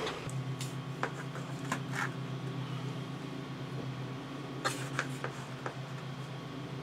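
Faint scrapes and taps of hands handling molding sand at a workbench and in a bucket, over a steady low hum.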